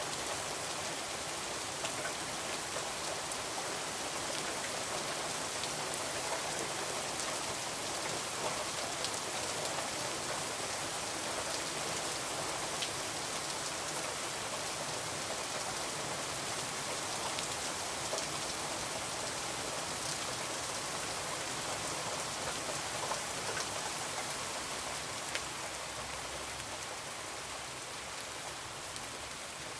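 Heavy rain falling steadily in a dense, even hiss, with a few sharp ticks scattered through it.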